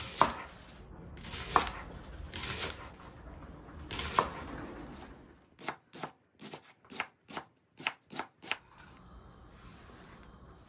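Knife chopping leeks on a cutting board: a few sharp strokes with rustling between them, then a quick run of about nine cuts, roughly three a second, which stops a little past halfway.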